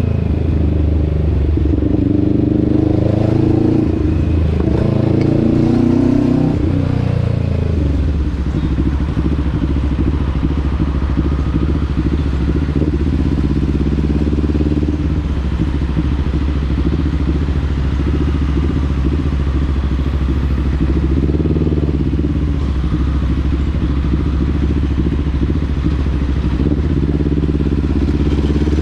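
Motorcycle engine running under way, its pitch rising and falling over the first several seconds as the revs change, then holding steadier.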